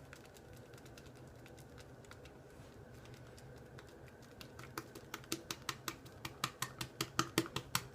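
Semogue boar shaving brush whipping Mitchell's Wool Fat soap into lather in a glass Pyrex bowl, the bristles popping against the bowl's sides in a quick run of clicks, about four a second. The clicks are faint at first and get louder about halfway through.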